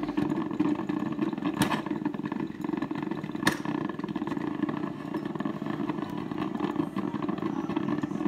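Black+Decker drip coffee maker gurgling steadily near the end of its brew cycle, with two sharp clicks, about one and a half and three and a half seconds in.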